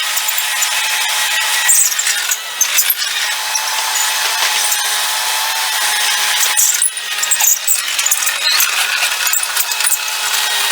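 Mustang MTL25 compact track loader working, its diesel engine and machinery sped up to a high-pitched whirring and rattling, with steady whining tones.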